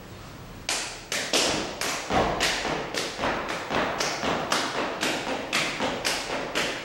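A dancer's body percussion: a quick, slightly uneven series of sharp hits, about two to three a second, starting under a second in. Each hit rings on in a bare, echoing room.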